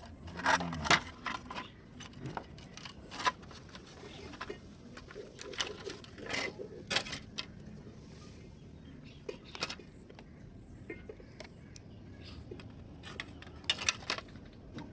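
Irregular sharp clicks, taps and light clinks of plastic and metal laptop parts being handled and pried apart during disassembly. The clicks come in small clusters at the start, in the middle and near the end.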